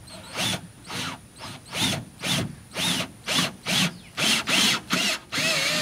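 Cordless drill with a socket adapter turning the screw of a scissor stabilizer jack, run in short trigger bursts about two a second, its motor whine rising and falling with each burst; the last burst runs a little longer.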